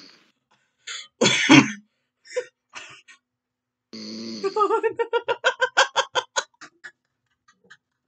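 A sleeping person snoring, heard through a Discord voice call: a loud snort about a second in, then a long stuttering snore from about four seconds to near seven.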